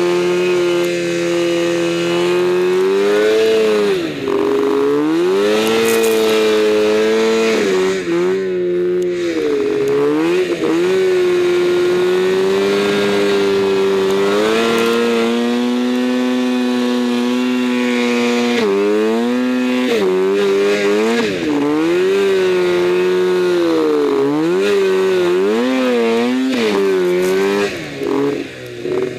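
Arctic Cat M1000 snowmobile's two-stroke twin engine running hard through deep powder, its pitch repeatedly dropping and climbing again as the throttle is let off and reopened.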